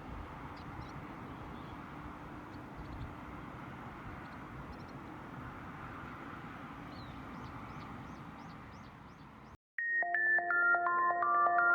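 Steady outdoor background noise with small birds chirping faintly, including a run of quick repeated high notes near the end. About ten seconds in it cuts off abruptly and electronic synthesizer music starts.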